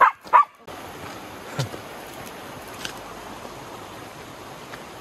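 Steady rush of flowing river water, opened by two short, loud voice sounds in the first half-second.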